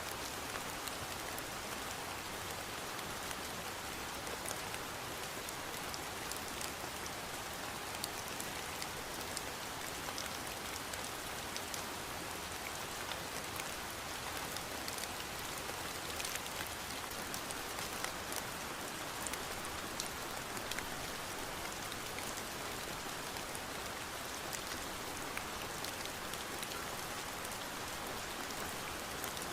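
Steady rain falling, an even hiss of many drops with small patters on a surface, unchanging throughout.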